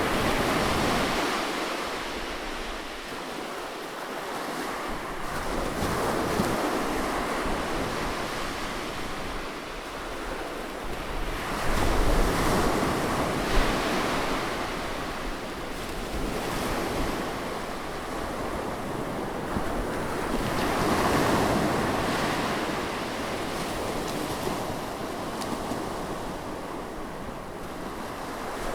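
Sea waves washing onto a shore, swelling and falling back every few seconds, with wind rumbling on the microphone.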